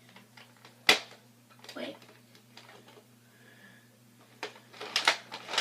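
A sharp single click about a second in, then a cluster of clicks and rustles near the end: a plastic Nerf toy shotgun being handled and readied for another shot.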